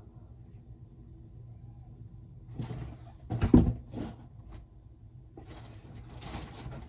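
Clothes and a fabric backpack being handled while packing: a few knocks and rustles around the middle, the loudest a sharp thump, then a stretch of rustling as things are pushed into the bag, over a low steady hum.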